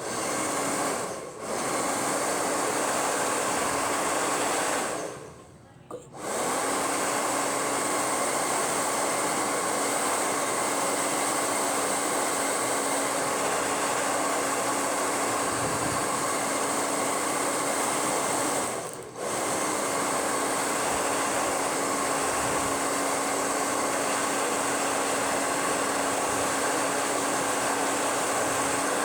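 Hair dryer running on its strong setting: a steady loud blowing rush with a constant motor hum. It is switched off for about a second around five seconds in and back on, with brief dips about a second in and near nineteen seconds.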